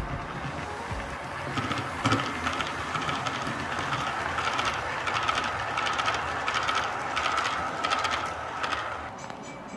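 Model train, a diesel locomotive pulling boxcars, rolling past on the layout track: a steady rolling rattle of wheels on rail with regular clicks about every two-thirds of a second and a faint high steady whine. It fades away near the end as the train moves off.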